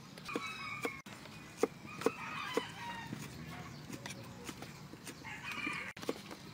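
Chickens clucking and calling in short bursts a few times, over sharp irregular knocks of a knife striking a wooden chopping board.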